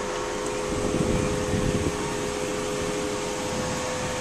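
A steady mechanical hum with a constant droning tone, like a fan or air-conditioning unit running, with a short low rumble about a second in.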